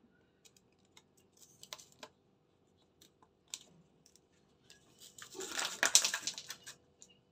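Plastic ice cube tray being handled and twisted to free the cubes: a few light clicks and taps, then a crackling rattle for about a second and a half near the end as the cubes break loose.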